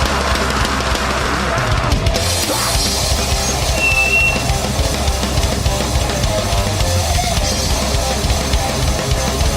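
A thrash metal song played by a band on distorted electric guitar, bass and drum kit, running on without a break.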